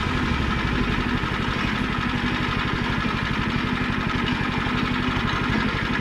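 Gasoline engine of a portable band sawmill running steadily, with an even low-pitched firing beat.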